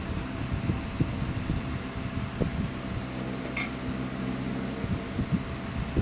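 Steady electric fan hum, with soft low knocks and rustles from a thin wire being handled. A brief high chirp sounds about three and a half seconds in.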